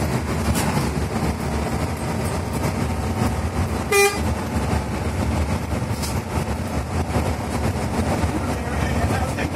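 Steady engine and road noise inside the cab of a moving bus, with one short horn toot about four seconds in.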